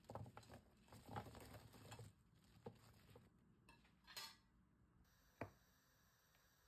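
Crinkle-cut chips being tipped onto paper on a serving tray: a faint pattering rustle for about two seconds, then a few scattered light clicks and taps.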